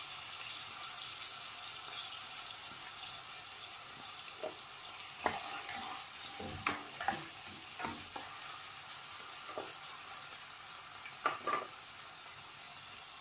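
Garlic and chopped onion sizzling as they sauté in a pot. From about four seconds in, a spatula stirs them, clicking and knocking against the pot several times.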